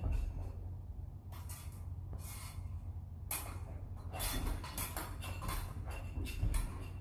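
Steel rapier blades clashing and scraping against each other in quick exchanges: a few short metallic bursts, then a denser run of them over the last few seconds, over a low steady hum.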